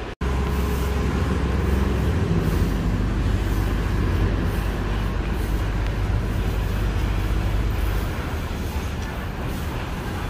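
City street traffic: a steady low rumble of heavy vehicles with a broad road-noise haze, after a momentary cut in the sound just at the start.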